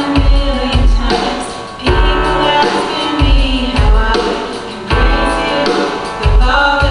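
A woman and a young boy singing a worship song together through microphones, over accompaniment music with a drum beat.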